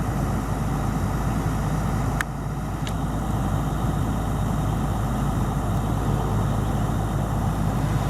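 Excavator's diesel engine running steadily at a low, even speed, with two sharp clicks a little over two seconds in and again under a second later.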